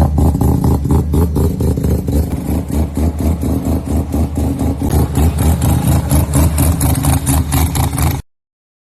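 Turbocharged rotary engine running, its exhaust pulsing loudly and unevenly at a steady speed without a clear rev. The sound cuts out abruptly for under a second near the end.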